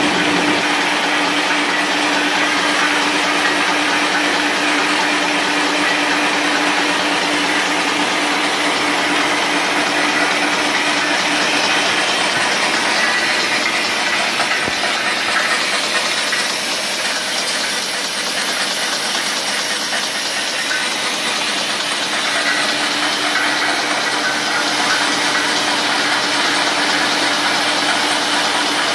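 Double-twist chocolate-ball wrapping machine running at production speed, about 320 pieces a minute: a steady, dense mechanical noise and hiss with a constant hum underneath.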